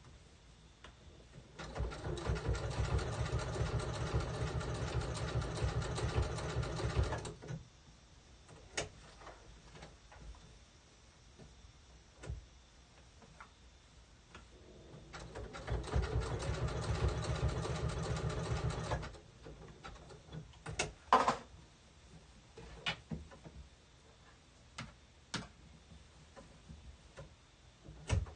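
Electric sewing machine stitching down an appliqué in blanket stitch on a terry towel: two runs of rapid, even stitching, about five seconds and four seconds long, with separate clicks and knocks between and after them as the fabric is handled.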